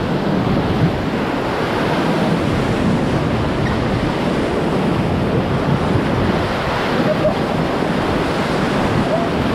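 Whitewater of a river rapid rushing steadily and loudly around a raft.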